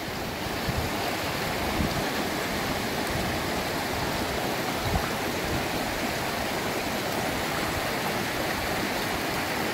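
Clear mountain river rushing over boulders and through shallow riffles: a steady, even rush of water.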